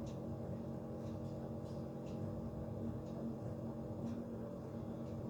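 A steady low hum made of several held tones, with a few faint short clicks scattered through it.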